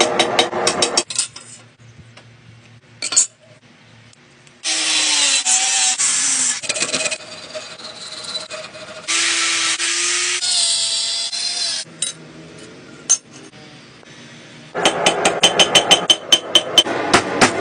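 Quick hammer blows on red-hot steel over an anvil for about a second. After a pause, a hand file rasps along a steel blade held in a vise, in long stretches. Near the end, fast hammering on the anvil starts again.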